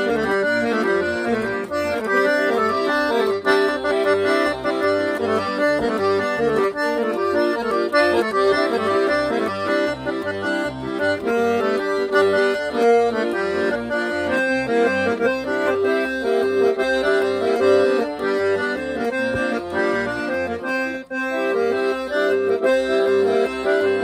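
Piano accordion playing fast, repeated right-hand melody patterns over a steady left-hand bass-and-chord pulse cycling through G major, B-flat major and C major.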